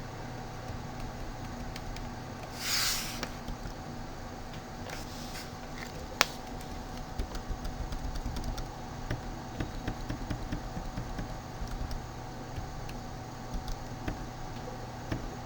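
Steady hum of a computer and room, with a short hiss about three seconds in, one sharp click around six seconds, then a run of light, irregular clicks and taps from a computer mouse and keyboard.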